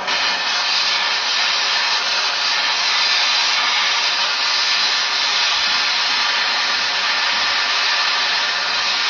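Small handheld gas torch burning steadily, its flame playing on a 7/8-inch copper pipe joint to bring it to red heat for brazing.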